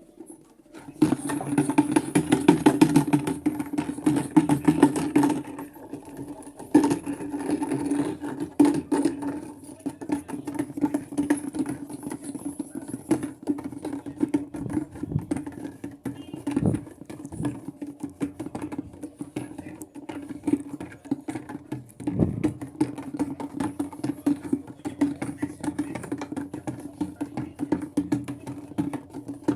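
Maytag washing machine running its delicate cycle: a steady motor hum with dense, rapid rattling. It starts about a second in and is loudest for the first few seconds.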